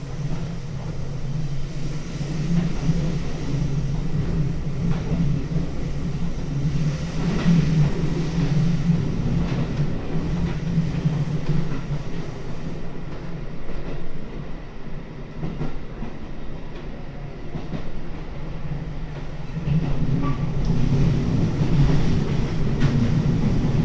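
JR Hokkaido Rapid Airport electric train running along the line, heard from inside the car: a steady rumble of the wheels and running gear with light rail-joint clicks. It quietens for a few seconds in the middle and grows louder again near the end.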